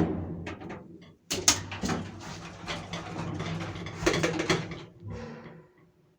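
Door and mechanism clunks and knocks in a small space, over a low steady hum, fading out near the end.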